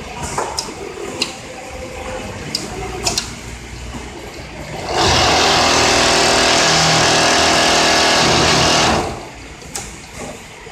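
Richpeace automatic template sewing machine at work: scattered sharp clicks and clacks from its mechanism. About halfway through comes a loud, steady run of machine noise lasting about four seconds, which starts and stops abruptly.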